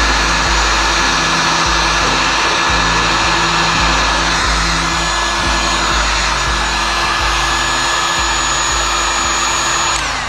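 Electric heat gun blowing steadily with a thin fan whine as it shrinks heat-shrink tubing over wire connections; it cuts off near the end.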